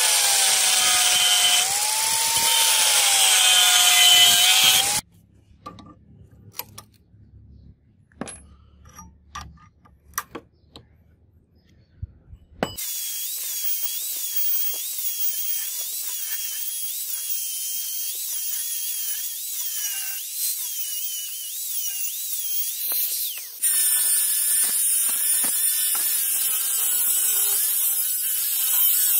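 Angle grinder grinding a steel knife blank cut from a bearing, its motor whine wavering as the disc is pressed into the metal. It stops about five seconds in, leaving a quiet stretch with a few light clicks and taps, then starts grinding again about thirteen seconds in and gets louder about three quarters of the way through.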